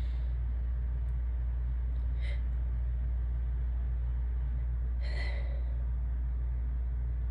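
A person's sneeze buildup: three short breathy inhales, at the start, about two seconds in and about five seconds in, over a steady low hum.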